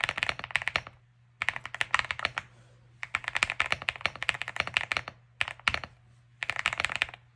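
Leobog Hi75 mechanical keyboard with Gateron Smoothie Silver linear switches and Black Jade keycaps being typed on fast, in several bursts of rapid keystrokes with short pauses between them.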